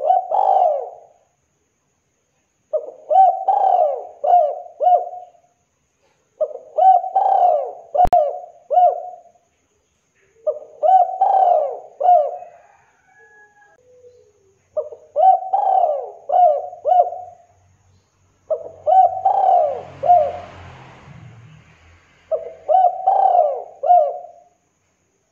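Spotted dove (tekukur) cooing: seven repeated multi-note coo phrases, one about every four seconds. A single sharp click comes about eight seconds in.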